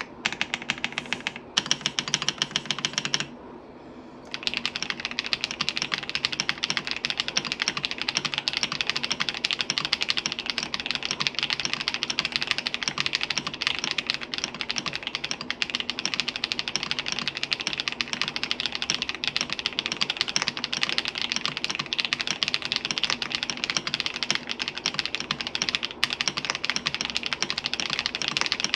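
Mechanical keyboard with thick PBT keycaps being typed on fast, a dense stream of key clacks. The typing stops for about a second a little over three seconds in, then resumes as continuous rapid typing.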